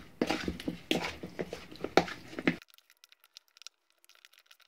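Hand mixing oiled, spiced raw chicken wings in a glass bowl: irregular wet squelches and slaps of meat, with knocks against the glass. It stops about halfway through, leaving near silence.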